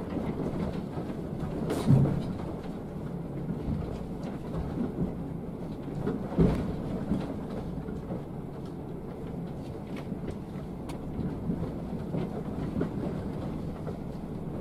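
Cabin rumble and rattling of a Scania K360 coach crawling over a broken, potholed dirt road, with two heavy thuds about two seconds and six and a half seconds in as the bus drops into holes.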